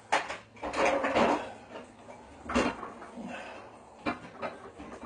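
Kitchen things being handled: a few separate knocks and clatters of hard items and cupboard or drawer fittings, as a blender is got out.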